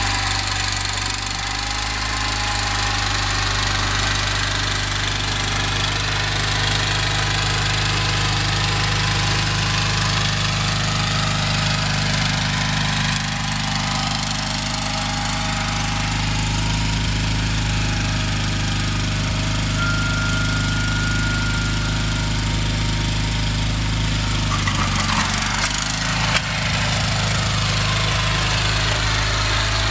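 Gravely 20-G Pro garden tractor engine running steadily, its note wavering briefly near the end.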